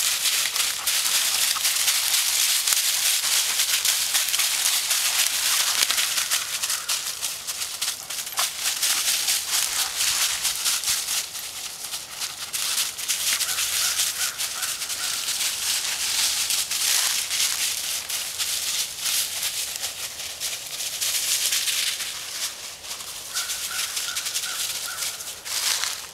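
Footsteps crunching and shuffling through deep, dry fallen leaves: a dense, continuous crackle that thins out near the end.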